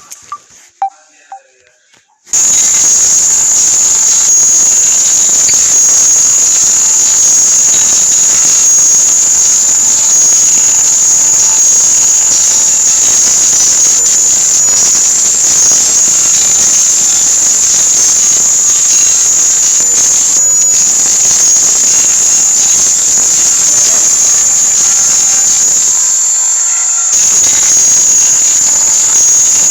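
Phone ringtone playback: a few short, quick notes, then about two seconds in a loud, steady hiss like static takes over, easing briefly near the end.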